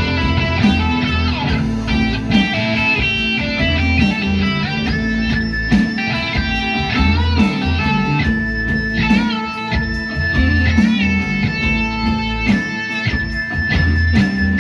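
Background music: a guitar-led instrumental with a bass line and a steady beat.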